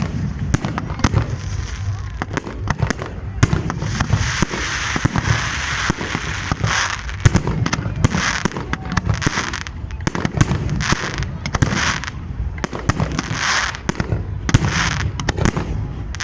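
Fireworks display: rapid, irregular bangs of shells bursting, with repeated bursts of crackling effects about a second long each.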